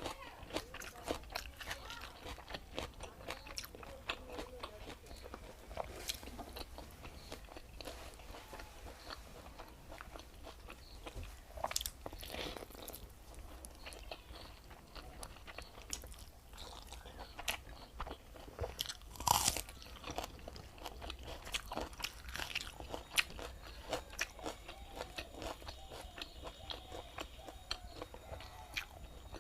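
Close-miked eating: a person chewing and crunching mouthfuls of pakhala (watered rice) with saag and onion, a steady run of irregular crisp clicks, with a louder crunch about nineteen seconds in.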